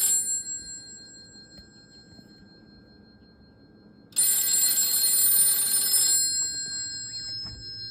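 Vintage rotary telephone's mechanical ringer bells ringing on an incoming test call: the end of one ring fades out, then after a pause of about four seconds a second ring of about two seconds sounds and dies away. The phone is ringing properly.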